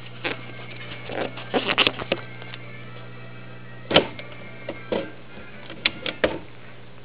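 A 1935-36 Magnavox Illustravox Senior's loudspeaker puts out a steady low hum, with irregular crackles and pops over it, the loudest about two and four seconds in.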